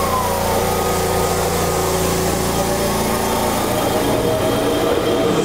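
Ueda Electric Railway 1000 series electric train starting to pull away, with a steady electrical hum and high tones from the standing train. About three seconds in, the traction motors' whine comes in and slowly rises in pitch as the train gathers speed.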